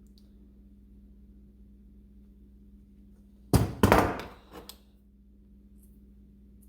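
A quick cluster of loud clunks about three and a half seconds in, two main hits and a few smaller ones, like hand tools being knocked or set down on a bench, over a steady low hum.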